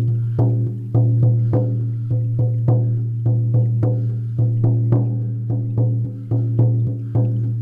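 A 14-inch deerskin frame drum on an ash wood hoop, struck with a soft beater in a steady beat of about two strokes a second. Each stroke leaves a deep, ringing tone that carries on under the next.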